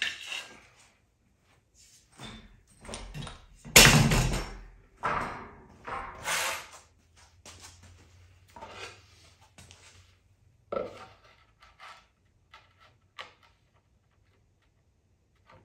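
Knocking and scraping as things are handled and set down on a bare concrete floor. There is a loud thunk about four seconds in, then scrapes, and later a few lighter clicks and knocks.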